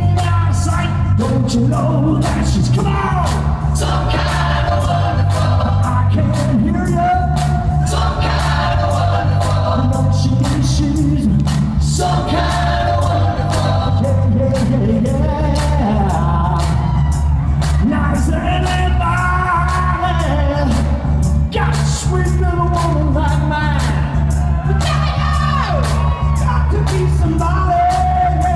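Live rock band playing: male lead and harmony vocals over keyboard, bass guitar and drums.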